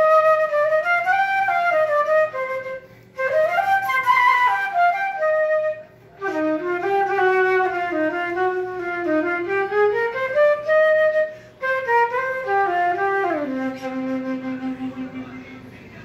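Solo melody on a transverse flute, played in phrases with three short pauses for breath, ending on a long low held note that fades away.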